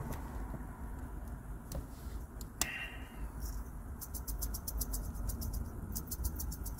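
Plastic squeeze bottle of sauce being squeezed over chicken burgers, sputtering and spitting. It makes a short squeak, then quick runs of small clicks as air and sauce squirt from the nozzle.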